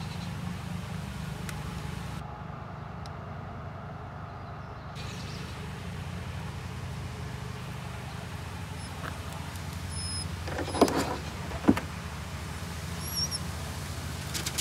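A steady low mechanical hum, with two sharp clicks a little under a second apart near the end.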